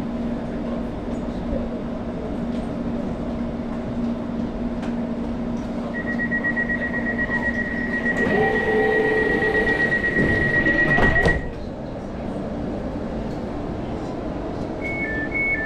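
London Overground Class 710 train's passenger doors closing: the stationary train hums steadily, then the door-closing warning beeps rapidly for about five seconds. The doors slide shut under the beeping and close with a knock about eleven seconds in, after which the hum is quieter.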